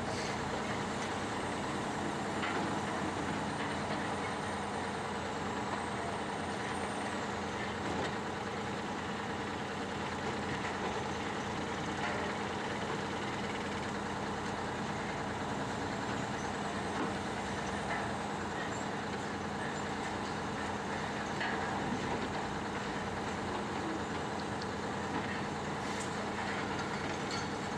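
Engine of heavy machinery running steadily, with a constant hum.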